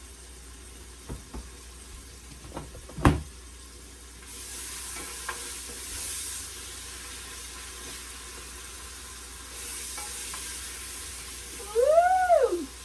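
A few light clicks and one sharp knock of a utensil on the pot, then seasoning frying in hot oil on a high flame, sizzling in two stretches while it is stirred. A voice exclaims "woo!" near the end.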